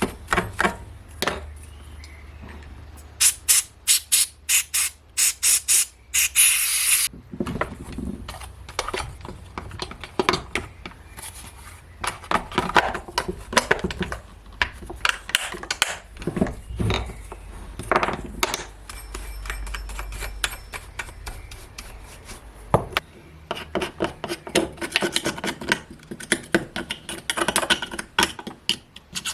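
Hand maintenance work on a chainsaw: parts clicking and knocking as they are handled, a run of quick scraping strokes about three a second, a short hiss, then more scraping and rubbing.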